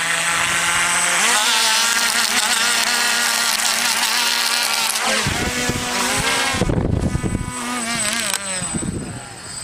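Crashed quadcopter's electric motors whining as it lies on the ground, in a pitch that wavers and steps up about a second in. Low rumbling on the microphone comes in the second half.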